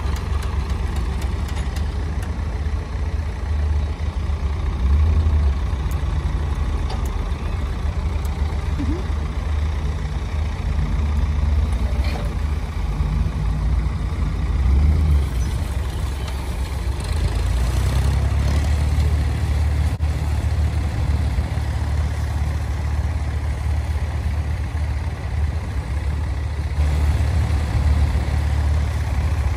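Ford farm tractor's engine running steadily as it pulls a row-crop planter through a tilled field.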